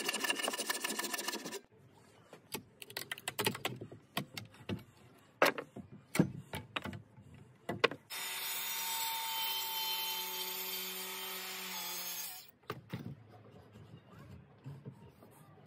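Handsaw strokes rasping through a timber beam, then a run of sharp, irregular knocks as a chisel chops out the wood between the saw cuts. After that comes a steady mechanical drone lasting about four seconds.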